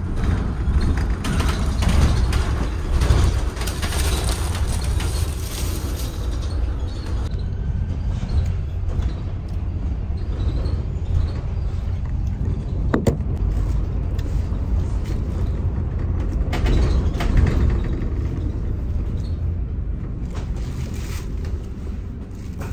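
Street traffic noise: a steady deep rumble of passing road vehicles, with a single sharp click about 13 seconds in.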